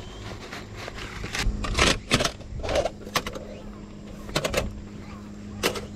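A SOTO folding metal table being slid out of its fabric case with a rustle, then unfolded: a string of sharp clicks and clacks as the metal leaves swing open and lock into place.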